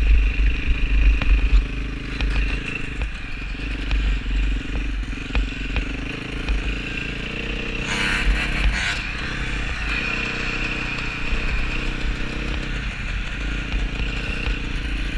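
KTM dirt bike engine running steadily as the bike rides along, its pitch rising and falling a little with the throttle, with heavy wind rumble on the helmet camera's microphone.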